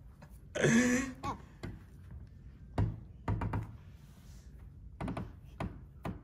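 A short, loud cry with a bending pitch about a second in, then several dull knocks and thunks spread over the next few seconds.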